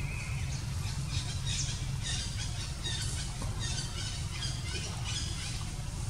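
Many short, high-pitched chirping squeaks in quick succession over a steady low rumble.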